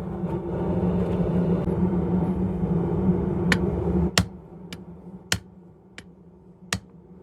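Hammer blows on metal at a blacksmith's anvil, single sharp strikes spaced roughly half a second to a second apart in the second half. Before them a steady machine drone with a hum stops suddenly about four seconds in.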